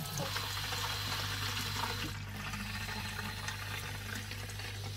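Tap water running into a plastic bottle, filling it, as a steady rushing over a constant low hum.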